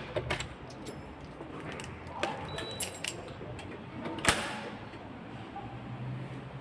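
Replacement mortice lock's spring-loaded latch being worked: a few light clicks, then a louder metallic clack about four seconds in as the latch snaps home.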